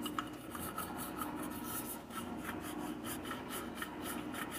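Stiff toothbrush scrubbing a stainless steel stove drip pan in soapy water, a steady run of quick scratchy back-and-forth strokes as the burnt-on grime comes off.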